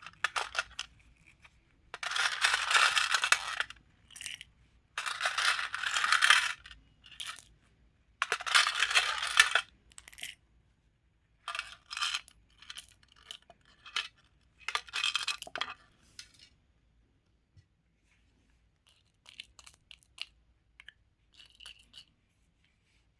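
Small hard beads clattering and rattling, poured in three long runs, then in shorter bursts, with a few faint clicks near the end.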